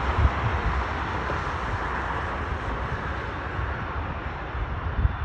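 Distant jet aircraft engines making a steady rushing noise that slowly fades, over an uneven low rumble.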